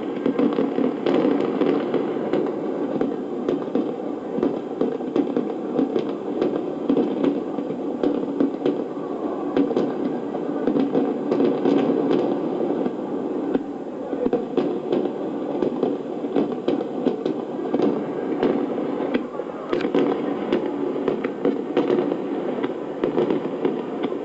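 Large fireworks display: a continuous barrage of many overlapping shell bursts and crackling, heard through a TV broadcast's audio.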